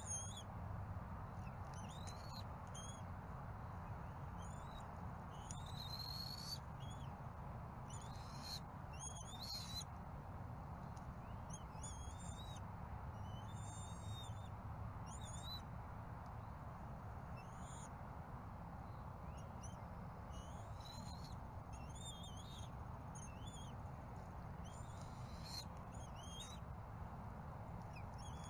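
Birds chirping: short, high chirps and whistles, some gliding up or down, several every few seconds, over a steady background hiss and low hum.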